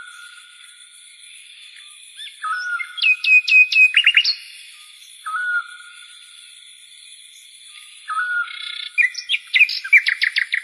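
Bird-like chirping calls in a phrase that repeats about every three seconds: a short flat whistle, then a quick run of sweeping chirps. Underneath is a steady high-pitched drone.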